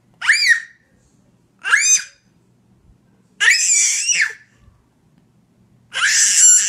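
A baby letting out four high-pitched squeals, each rising and then falling in pitch. The last two are longer and rougher than the first two.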